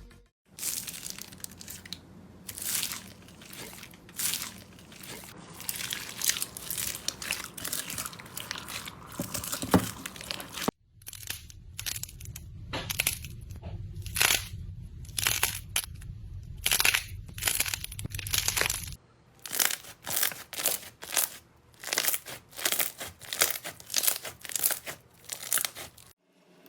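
Slime being squeezed and pressed by hand, giving a quick run of sharp crackling crunches. The sound cuts abruptly to a new take about 11 and 19 seconds in.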